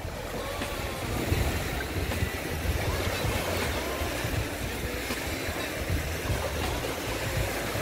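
Small waves breaking and washing up over wet sand at the water's edge, a steady rush of surf, with wind rumbling low on the microphone.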